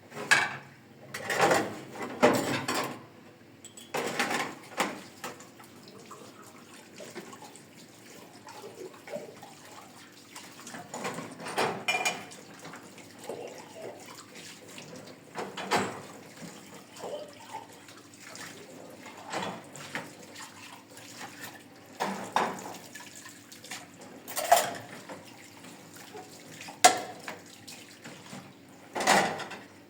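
Dishes being washed by hand: water running and splashing, with dishes and pots clattering and knocking at irregular intervals.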